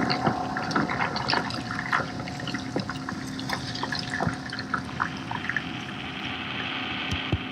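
Water splashing and trickling, with many small irregular drips or plops over a faint steady hum.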